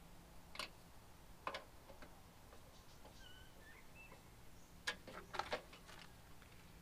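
Small metallic clicks and taps of a hand tool working a screw on a barrel bolt fitted to a tool-chest drawer: two single clicks in the first two seconds, then a quick cluster of clicks about five seconds in.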